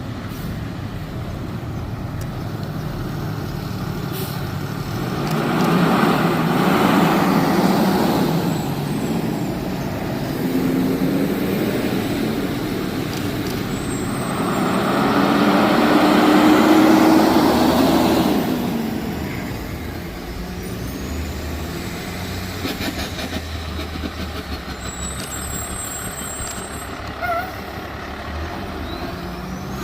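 Heavy fire trucks driving past one after another: engine and tyre noise swells and fades twice, about six seconds in and again around sixteen seconds, over steady traffic noise.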